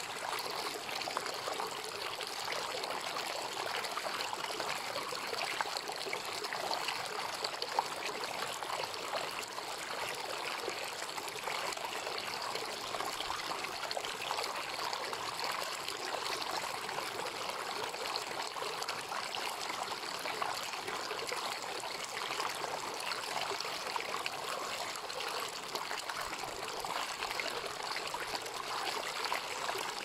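Shallow rocky stream running over and around rocks, a steady, even trickle and babble of water.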